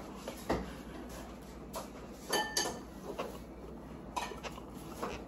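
Faint taps and clicks of food and dishes being handled while eating, with a short ringing clink about two and a half seconds in.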